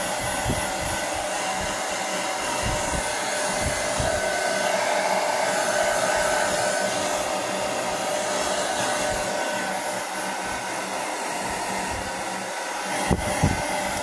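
Pink handheld hair dryer blowing steadily with a constant whine, drying a dog's wet coat, with a few low thumps near the end.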